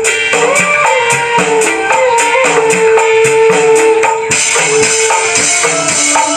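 Dangdut koplo played on smartphone music apps through miniature homemade speakers: a rhythm tapped out on the phone's drum pads with tambourine jingles under a held melody line that slides in pitch. The jingles grow brighter about four seconds in.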